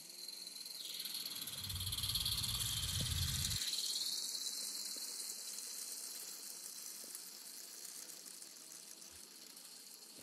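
Miniature railway train running past on ground-level track: a steady rushing and rolling sound that builds to its loudest two or three seconds in, then slowly fades as the long rake of wagons goes by.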